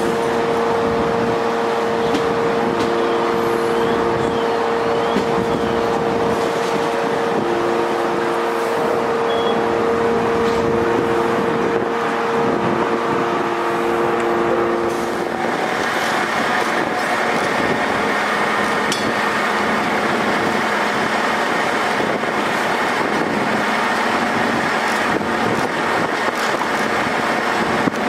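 Fire apparatus diesel engines running steadily, a continuous drone with several held tones. About halfway through, the sound changes abruptly to a broader, rougher drone with a different set of tones.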